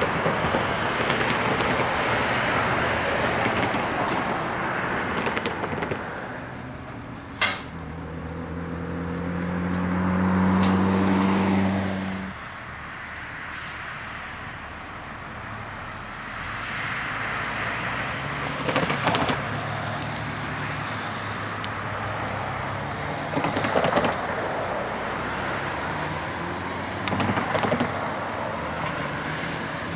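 Outdoor vehicle noise at a rail crossing: a steady rumble, with an engine drone that swells about eight seconds in and cuts off abruptly about twelve seconds in. After that comes a lighter rumble with a few sharp clicks.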